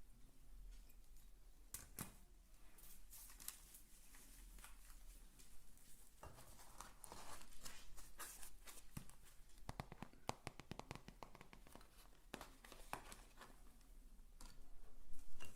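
Close-miked ASMR trigger sounds: irregular scratching and rustling on an object, with a quick run of light taps about two-thirds of the way through.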